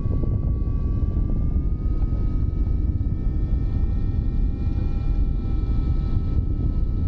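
Rushing airflow buffeting the microphone during paraglider flight, a steady low rumble. A faint, steady high whistle sits over it and rises slightly in pitch over the first few seconds.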